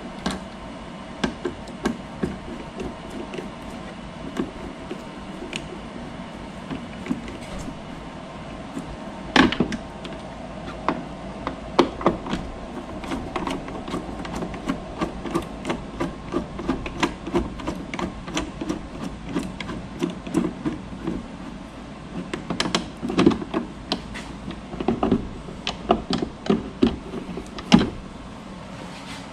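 Screwdriver backing out the Phillips screws that hold a speaker in a plastic motorcycle fairing: an irregular run of small clicks and knocks, busier in the second half, over a steady background hum.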